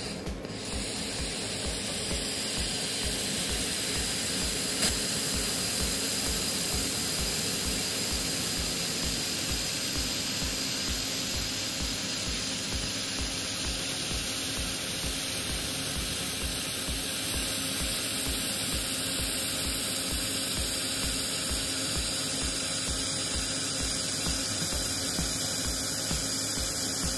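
Handheld fiber laser welder running a bead with filler wire on steel plate: a steady hiss that starts about half a second in and holds, with an even low pulsing underneath.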